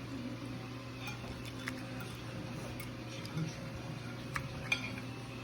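A few short, light clicks of cutlery against a plate, spread out over a low steady hum.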